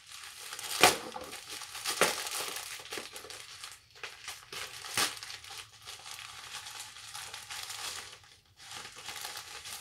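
Plastic mailer bag crinkling and tearing as it is pulled open by hand, with a few sharper rips, the loudest about a second in.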